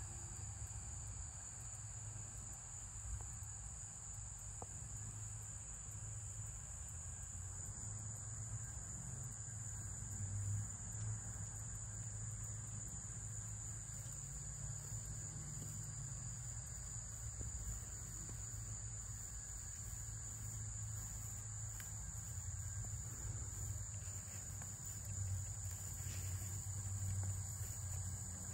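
A steady, high-pitched chorus of insects chirring in the background, with a low rumble underneath.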